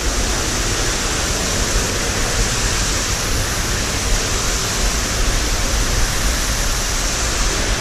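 Steady rushing of a mountain torrent's cascade, a loud even noise with a strong low rumble underneath.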